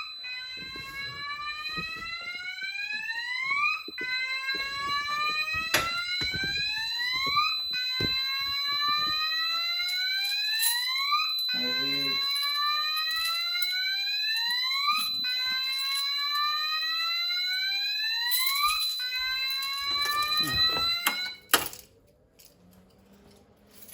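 Fire alarm sounder going off after a manual call point was triggered: a rising whoop that repeats about every four seconds, over a steady high-pitched tone, with a few clicks of handling. It cuts off suddenly near the end when the alarm is silenced.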